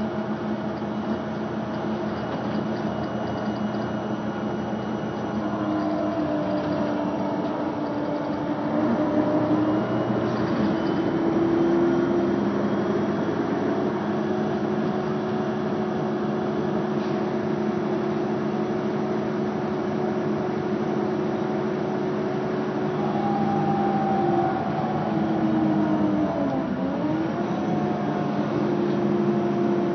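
Mercedes-Benz Citaro city bus engine and drivetrain heard from inside the passenger cabin while driving. A steady drone slowly climbs in pitch in stretches, with a quick dip and recovery in pitch near the end.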